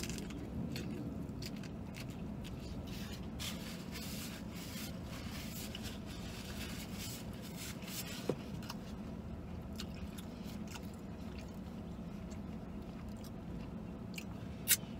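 Close-up biting and chewing of a spicy fried chicken sandwich, with irregular wet crunches and smacks and paper wrappers and a napkin rustling now and then. A steady low hum sits underneath.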